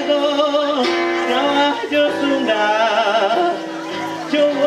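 A live band playing, with a woman singing a sliding, ornamented melody over acoustic guitar and held keyboard notes.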